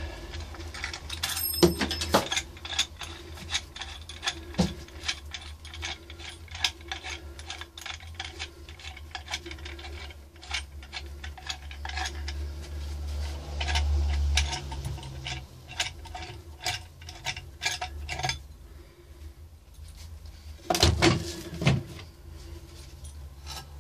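Small metal fittings (bolts, nuts and washers) clinking and clicking against each other and against wooden parts as a homemade lathe's tailstock screw assembly is handled and taken apart. There are many light clicks, with two louder knocks near the end.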